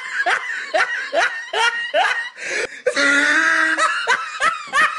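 Young child laughing in short repeated bursts, a few a second, each rising in pitch, with a longer drawn-out squeal about three seconds in.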